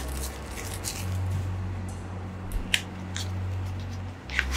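Box cutter slitting and scraping the plastic shrink-wrap on a card deck box: a few sharp clicks and crackles of plastic film over a steady low hum.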